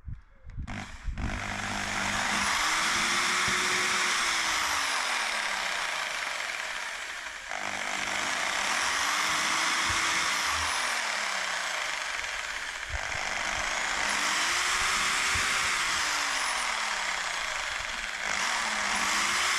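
Power drill running as it bores pilot holes into a motorhome's garage door, in long stretches with brief dips about every five to six seconds.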